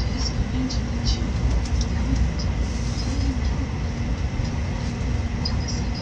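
Tokaido Shinkansen passenger car running, heard from inside the cabin: a steady low rumble with a faint constant whine and a few light ticks.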